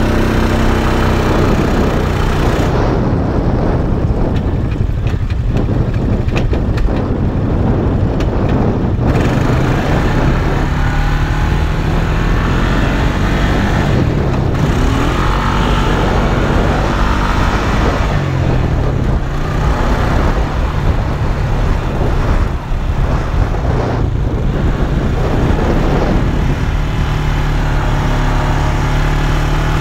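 Quad bike (ATV) engine running while being ridden over sand, its pitch rising and falling with the throttle, with wind rushing over the microphone.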